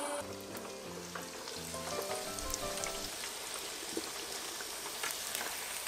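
Breaded pork cutlets deep-frying in hot oil in an electric fryer: a steady sizzle with scattered crackles. A short tune plays over the first three seconds.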